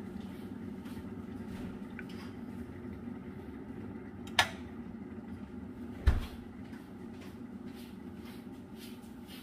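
A latch clicks about four seconds in, and a door thumps shut about a second and a half later, over a steady low hum in the room.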